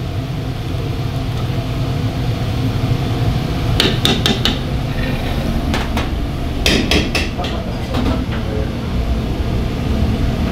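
Metal ladle and ceramic bowl clinking and knocking in two short clusters of sharp taps as jajang sauce is ladled onto noodles and the bowl is set on a stainless-steel counter, over a steady low kitchen rumble.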